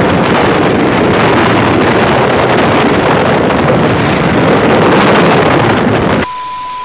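Heavy wind buffeting the microphone of a camera on a moving motorcycle: a loud, steady rushing that covers the engine. About six seconds in it cuts off and a steady electronic beep sounds.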